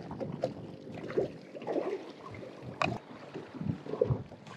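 Water lapping and slapping against the hull of a small fishing boat on open sea, with wind on the microphone and a few scattered clicks and knocks.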